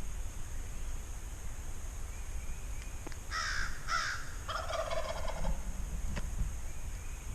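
A wild turkey gobbling once, about three seconds in: a rapid rattling call lasting about two seconds, over low wind rumble.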